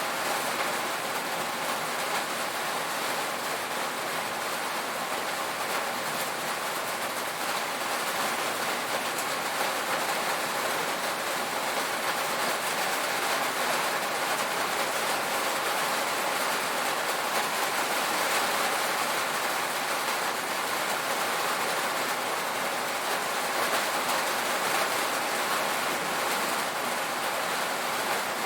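Steady, dense rain drumming on a tin roof, an even patter with no letup.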